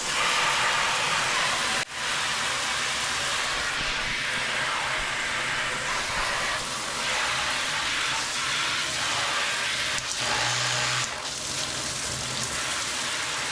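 Water spraying steadily from a Waterpik hand-held showerhead into a bathtub, a constant hiss of spray with a brief break about two seconds in. The water is running to test the new installation for leaks.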